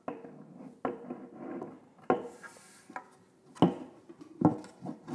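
Top shelf panel of a Monolith XL audio stand knocking against its hollow steel uprights as it is set down and shifted into place: about six sharp knocks, a second or so apart.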